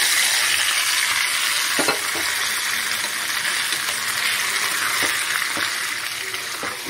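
Hot ghee with fried cashews sizzling in sweet pongal in a steel pot as it is stirred in: a steady hiss that slowly fades, with a few light knocks.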